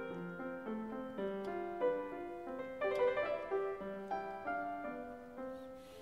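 Background music: a piano playing a steady run of notes, one after another.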